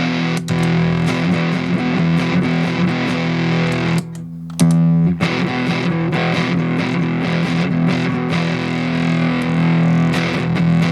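Electric guitar played through a transistor fuzz pedal: a heavily distorted, sustained riff, with a brief break about four seconds in before it comes back loud.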